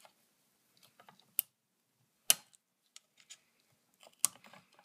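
A knife tip clicking and scraping against the wrist-pin circlip in a chainsaw piston while prying at it: three sharp metallic clicks, the loudest about halfway through, with faint ticks between. The circlip does not budge.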